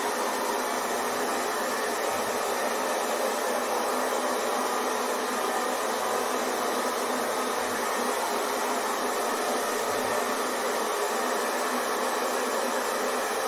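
Hair dryer blowing steadily, an even whooshing hiss with a faint steady whine and no change in level.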